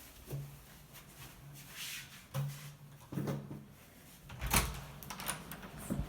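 A door worked by a hydraulic door closer, opened and let swing shut after the closer was adjusted to close softer: a string of clicks and knocks, the loudest a low knock about four and a half seconds in. At this setting the door closes softly but not hard enough to set the lock.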